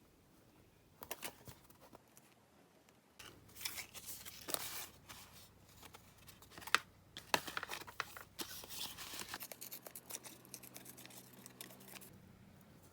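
Scissors snipping paper, a run of short cuts and paper rustling during scrapbook diary decorating, with one sharper snip about seven seconds in.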